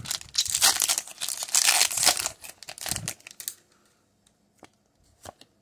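Metallic foil wrapper of a Pokémon trading card booster pack crinkling and tearing as it is opened by hand. The crinkling stops about three and a half seconds in, followed by a few faint clicks.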